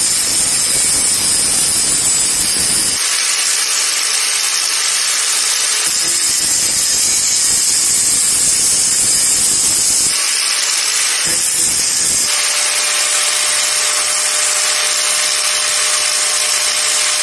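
Electric angle grinder running with a high hiss, its disc grinding a titanium block in three passes: the first three seconds, from about six to ten seconds, and briefly near twelve seconds. After that it runs on with a steady hum.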